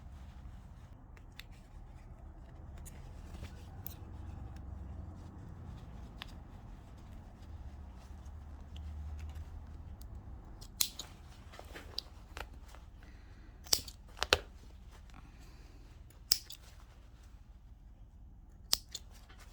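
Thread stitching on denim being cut while unpicking a jeans zipper: about six sharp snips scattered over the second half, over a low steady rumble.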